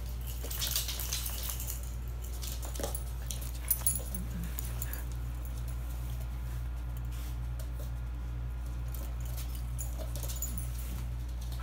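Two dogs playing on a wooden floor: scattered light clicks and jingles from paws and tags, a few brief faint dog noises, and two sharper knocks a little under four seconds in, over a steady low hum.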